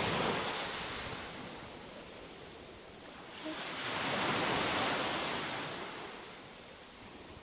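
Small waves washing up a sandy beach: two washes of surf, each swelling and fading, about four and a half seconds apart.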